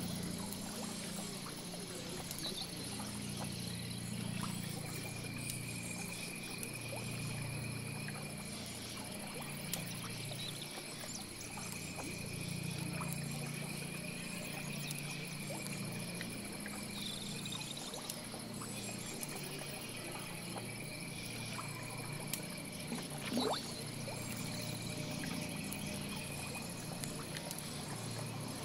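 Swamp chorus of frogs and insects: a steady high insect hiss, a trill that comes and goes in runs of a couple of seconds, and a low drone underneath.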